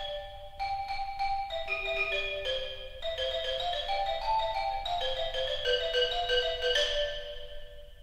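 Sampled orchestral xylophone from EastWest's Hollywood Orchestral Percussion 'Xylophone Lite' virtual instrument, playing a melodic line of single struck notes at about two a second. The last notes ring out and fade away near the end.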